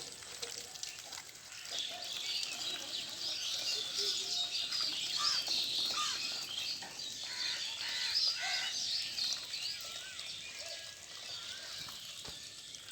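Many small birds chirping, short high-pitched calls overlapping in a dense chorus that thins out near the end.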